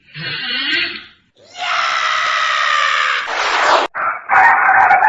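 Exaggerated cartoon snoring sound effects: a short snore, then a long, loud, rasping snore that cuts off suddenly a little before four seconds in, followed by a warbling snore that sounds like a rooster crowing.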